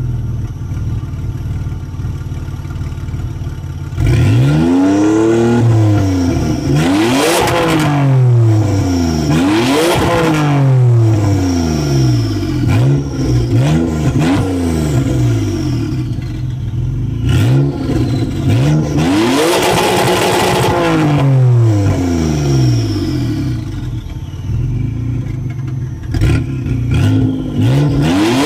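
Dodge Stealth R/T twin-turbo 3.0 L V6 through its cutout exhaust, heard from under the car: idling steadily, then from about four seconds in revved again and again in quick free revs that each rise and fall. There are a few sharp pops between revs.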